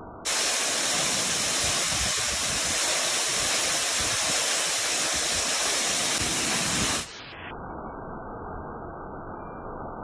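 Shakuran waterfall pouring into its pool: a steady, hissing rush of falling water that cuts in sharply just after the start and cuts off about seven seconds in, giving way to a duller, muffled rush of water.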